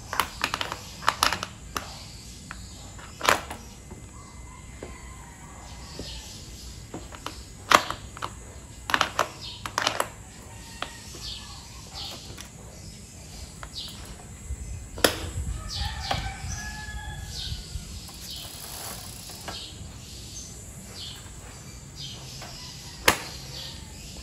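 Cleats on cycling shoes clicking into and snapping out of clipless pedals: a series of sharp clicks and snaps at irregular intervals, a second to several seconds apart, with the cleat mechanism still tight.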